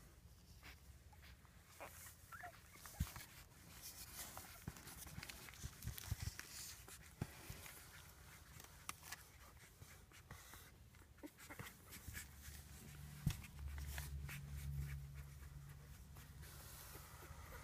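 Faint squeaks from five-day-old rough collie puppies, with soft rustling and clicks as a hand strokes and lifts them.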